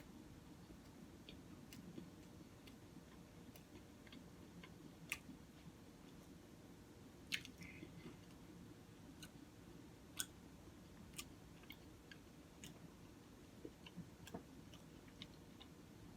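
Faint, close-up chewing of a person eating: scattered soft mouth clicks and smacks, with a few sharper ones, over a low steady hum.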